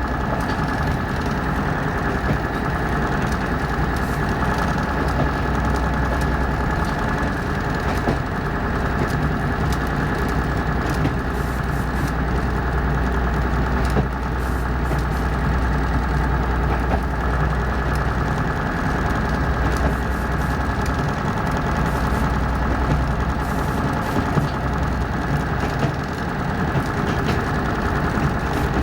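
Preserved diesel locomotive engine idling, a steady deep throb that stays even throughout.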